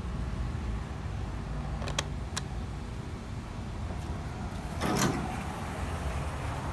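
2004 ThyssenKrupp elevator arriving at the landing: a steady low rumble, two sharp clicks about two seconds in, and a short burst of noise about five seconds in as the doors slide open.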